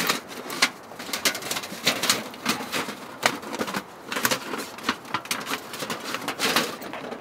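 Thin titanium panels of a small ultralight folding wood stove clicking and clinking against each other as they are slotted together: an irregular run of light metallic clicks and taps.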